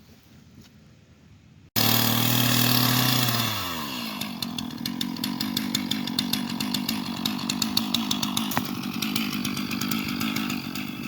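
After a short quiet start, a two-stroke chainsaw cuts in loud, running at high revs. About two seconds later its pitch glides down, and it runs on steadily at lower revs.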